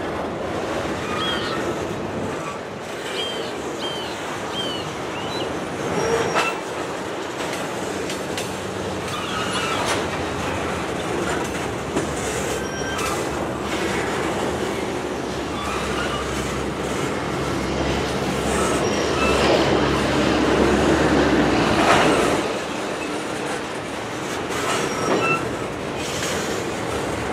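Intermodal freight cars, trailer flatcars and double-stack container cars, rolling past on the rails. A steady rumble of steel wheels on track, with scattered clanks and a few short high squeals, getting louder for a few seconds in the second half.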